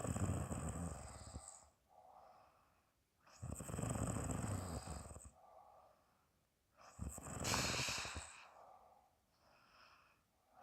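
Woman snoring in her sleep: three loud snores, each about two seconds long, roughly every three and a half seconds, with softer breaths blown out through the mouth between them.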